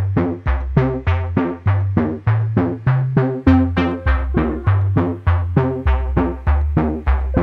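Background music: a quick, even run of struck notes over a stepping bass line.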